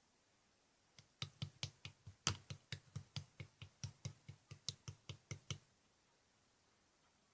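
A quick, even series of about twenty sharp taps or knocks, about five a second, starting about a second in and stopping after some four and a half seconds.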